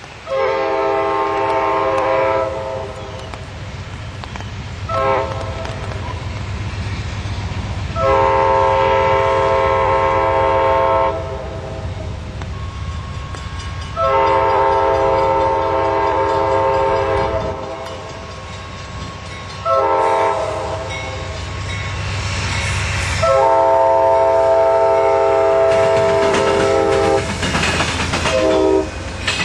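Amtrak P42 locomotive's multi-chime air horn sounding a series of long and short blasts as the train approaches: a long blast, a short one, two long, a short, a long and a final short. A low rumble of the train builds under the horn, and wheels clack over the rail joints as the passenger cars pass near the end.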